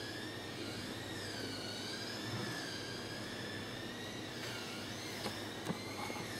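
A steady engine drone from outside, its whining pitch wavering slowly up and down. A few light knocks come near the end.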